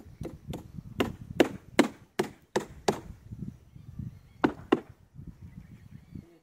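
A run of sharp chopping strikes, about two and a half a second: eight in a row, then two more after a pause of about a second and a half, over a low rumble.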